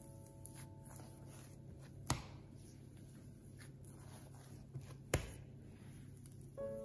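Hands kneading potato bread dough on a countertop: soft pressing and rubbing, with two sharp knocks about three seconds apart.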